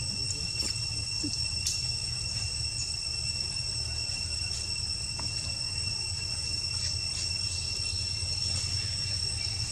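Steady, unbroken high-pitched insect chorus, with a low rumble beneath and a few faint clicks.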